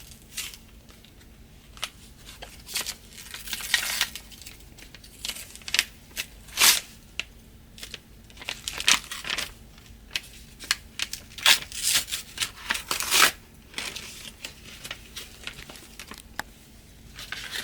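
A mail package being torn open by hand: repeated rips and crinkling of the wrapping in short, irregular bursts.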